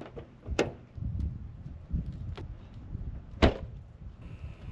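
Knocks and thumps of someone climbing into a Toyota Land Cruiser, ending with a single sharp slam of the driver's door about three and a half seconds in, the loudest sound.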